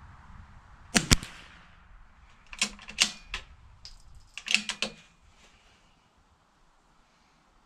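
A .22 LR Bergara B14R bolt-action rifle fires a single sharp shot about a second in. Two quick clusters of metallic clicks follow as the bolt is worked open and then closed to chamber the next round.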